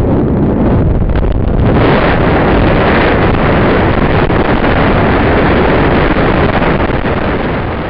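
Loud rushing of air over the microphone of a high-altitude balloon capsule falling under its parachute, the sign that the balloon flight has been cut short and the descent has begun. A few knocks and rattles come in the first two seconds.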